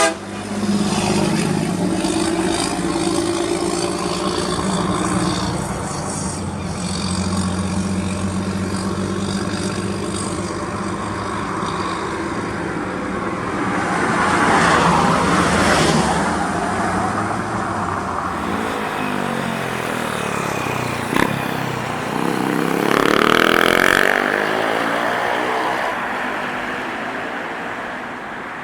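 Heavy trucks' diesel engines running and passing by, the sound swelling and sweeping past in the second half before fading away.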